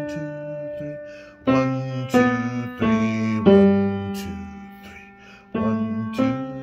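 Upright piano played slowly with both hands in a simple beginner piece: single notes and small chords struck one after another and left to ring out. A few quick notes in the middle are followed by a long held note dying away, then two more notes near the end.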